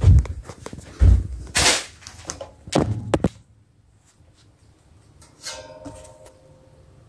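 Close handling noise on plastic ceiling-fan parts: a quick run of knocks, thumps and scuffs for about three seconds. After a pause, a short clatter with a faint ring comes about five and a half seconds in.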